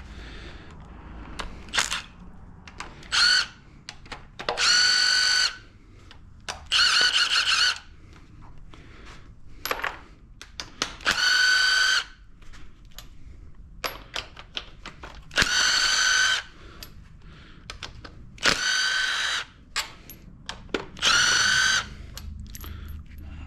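Impact wrench spinning out 13 mm engine bolts, running in about six bursts of roughly a second each with a high whine, with light clicks and clinks of the socket and bolts in between.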